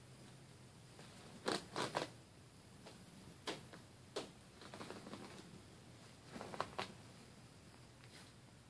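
Short scratchy crinkles of plastic as a ferret tugs at a stuffed toy wedged in a corrugated plastic tube, coming in a few small clusters: three close together about a second and a half in, single ones around three and a half and four seconds, and another group near six and a half seconds.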